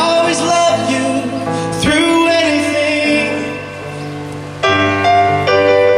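Live ballad music: a man singing sliding, held notes into a microphone over keyboard piano chords. The music drops softer for a moment, then a new chord comes in louder just before five seconds in.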